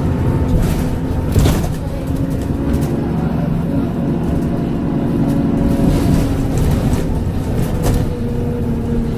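Transbus Trident double-decker bus engine running steadily with a steady hum, a sharp knock about a second and a half in and a few lighter rattles.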